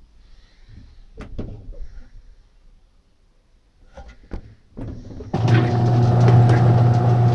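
Consul Super Jato 5 kg washing machine: a few knocks and clicks, then about five seconds in its motor starts abruptly and runs with a loud, steady hum.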